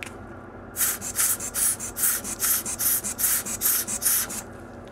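Brisk, rhythmic hissing strokes while a freshly soldered flex cable is being cleaned: about a dozen in a row at three to four a second, starting about a second in and stopping shortly before the end.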